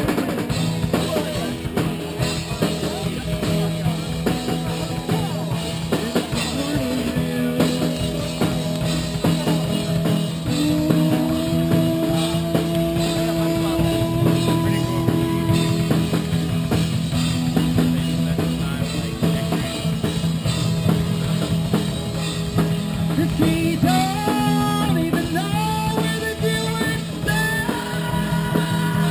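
Rock music with drums, guitar and singing, playing loudly throughout.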